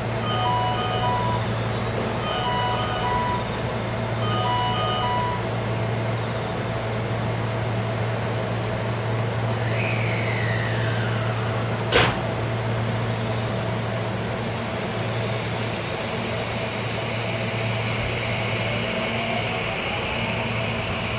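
JR West 223 series electric train at a station platform, with a steady low hum. A two-tone electronic chime sounds three times in the first five seconds. There is a single sharp clank about halfway through, and near the end the train pulls away with a faint rising motor whine.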